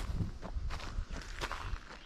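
A hiker's footsteps on a forest trail, an even walking pace of roughly one step every 0.7 seconds, each step a dull thud with a light crunch.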